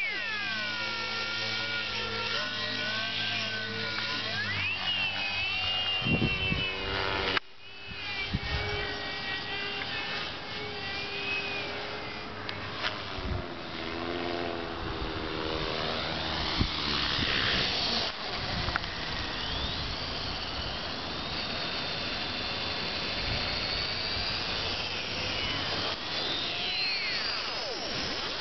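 Electric 450-size RC helicopter (a Rave) flying: the whine of its motor and rotor blades rises and falls in pitch as it manoeuvres, drops off sharply about seven seconds in, and sweeps down in pitch several times as it passes near the end.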